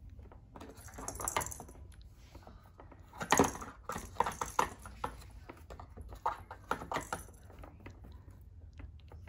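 A cat pawing at a ball trapped inside a small cardboard box toy, with irregular rattling clicks and knocks of the ball against the cardboard. The loudest knock comes about three and a half seconds in.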